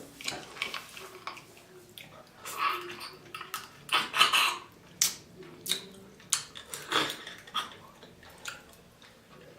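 Eating a seafood boil: a run of irregular clicks and clinks of shells and utensils against dishes, mixed with mouth sounds of eating, the loudest about four seconds in.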